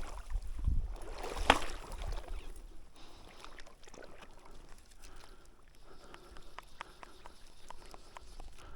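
River water sloshing and splashing around a wading angler's legs, with scattered light clicks.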